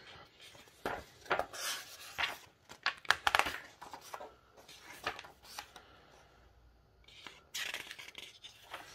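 Pages of a small paperback book being turned by hand: a series of irregular papery swishes and rustles, with a pause a little past the middle.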